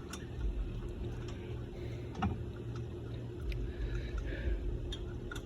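A few light metallic clicks and scrapes from lug nuts being threaded by hand onto the wheel studs of a spare tire, over a steady low hum with two spells of deeper rumble.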